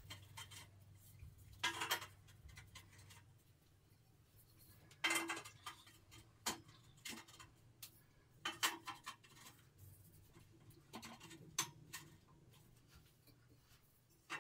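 Scattered short clicks and knocks, a second or more apart, from metal hardware being handled while holder arms are fitted and bolted onto the metal upright of a storage rack. A faint low hum lies underneath.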